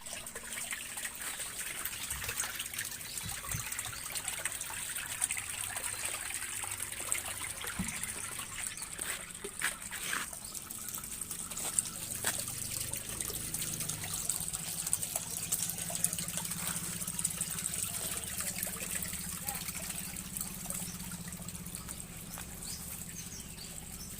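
Water trickling and splashing steadily in a homemade ice-making machine built from a 2 hp air-conditioner outdoor unit. A low steady hum joins about halfway through.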